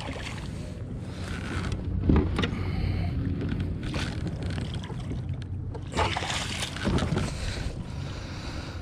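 Movement aboard a fishing kayak: a few sharp knocks and handling noises over steady wind and water noise.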